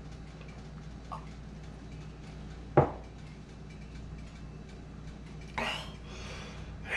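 A single sharp knock of a glass or dish set down on a hard kitchen surface about three seconds in, over a steady low hum. A brief rustle follows near the end.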